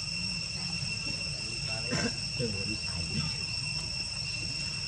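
Insects droning in a steady, unbroken high-pitched chorus, with faint low voice-like sounds underneath and a brief click about two seconds in.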